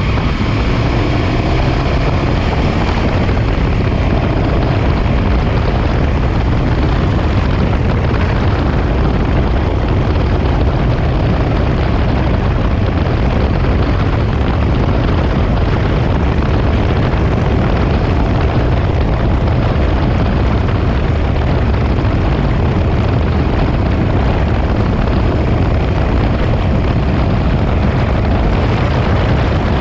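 1967 Triumph Daytona T100R's 500cc parallel-twin engine running under way on the road. Its note eases down in the first few seconds, then holds steady, with a heavy rush of wind on the microphone.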